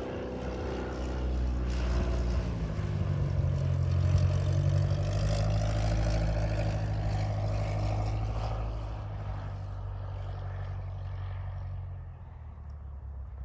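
Cessna 172's single-engine propeller plane running on its landing approach. It grows louder to a peak about four to six seconds in as it passes low, then fades as it descends away, dropping off near the end.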